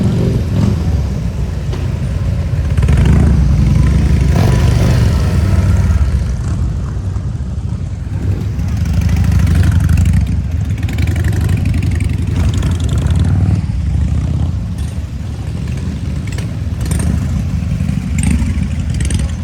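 Harley-Davidson V-twin motorcycle engine running loud and low, swelling in loudness about three seconds in and again about nine seconds in.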